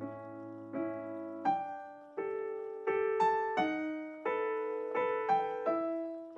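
Background piano music: single notes and chords struck at an unhurried, even pace, each ringing and fading before the next.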